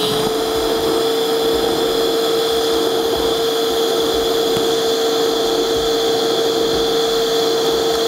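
TIG welding arc from an EWM Pico 160 cel puls inverter, burning steadily at 81 amps DC without pulse: a steady hum with a hiss over it.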